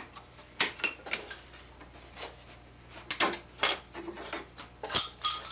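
Thin knotty pine strips clattering and knocking against each other and the bench as they are handled, in about ten irregular sharp knocks.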